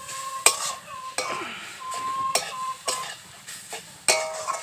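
A spatula stirring grated coconut in a kadai, knocking and scraping against the pan about once a second, with a faint sizzle underneath.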